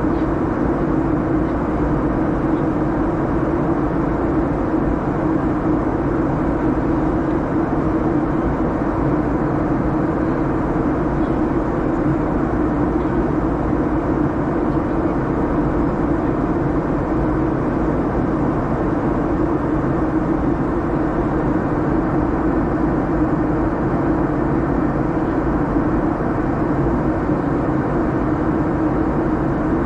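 Steady in-flight cabin noise of a Boeing 737-800: its CFM56-7B turbofan engines and the airflow over the fuselage make an even rush with a low hum, unchanging throughout.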